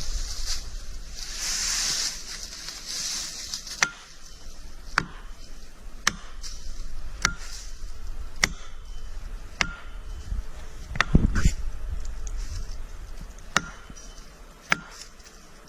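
Evenly spaced chopping or hammering blows on wood, about one every second, each a sharp knock with a short ring. A chainsaw's noise falls away at the very start.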